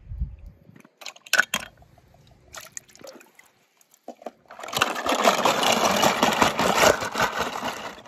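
A few sharp clicks and knocks. Then, from a little past halfway, about three seconds of loud splashing, rushing water that stops abruptly near the end.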